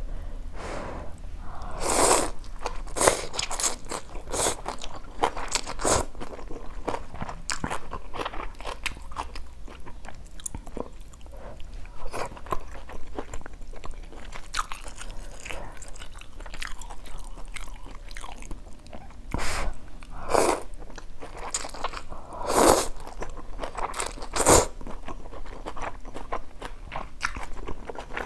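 Close-miked eating of instant noodles with water spinach: a run of slurps and crunchy chewing, with about half a dozen louder slurps spread through.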